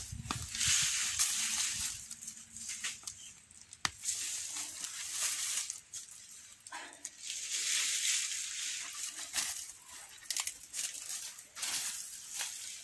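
Rustling, crunching noise that swells and fades several times, with a few sharp clicks.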